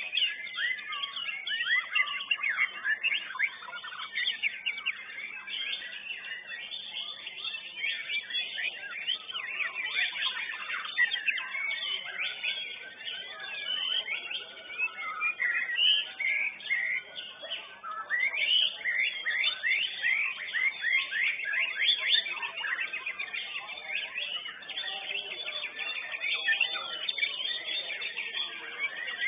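White-rumped shama (murai batu) singing: a dense, unbroken stream of rapid whistles, chirps and quick rising and falling notes.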